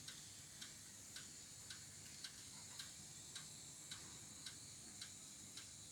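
Faint, even ticking, about two ticks a second, over near silence.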